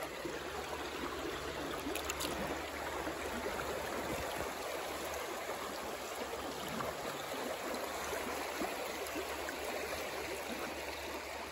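Steady rushing of flowing river water, with no break or change.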